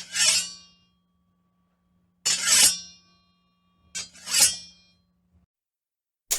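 Sword sound effects: three metal-blade scrapes in turn, each starting with a small click and swelling into a ringing metallic tail that fades within about half a second, with another starting right at the end.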